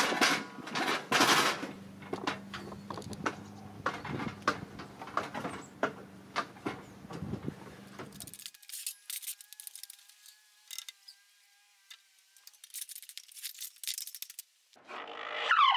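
A quick, uneven series of knocks and rattles from work on the wooden roof frame, over a steady low hum, stopping suddenly about eight seconds in. After a few faint ticks, music comes in near the end with a falling, gliding tone.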